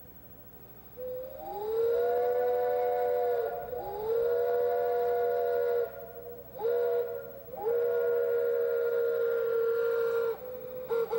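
A three-chime whistle blown on compressed air, sounding a chord of three notes. After a brief toot it gives two long blasts, a short one and a longer one, each swooping up in pitch as it opens, then a couple of quick toots near the end.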